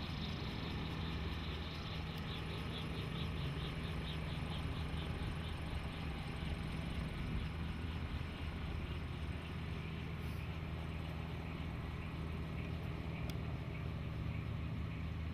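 Bell 47 helicopter's piston engine idling with the rotors turning slowly: a steady low drone.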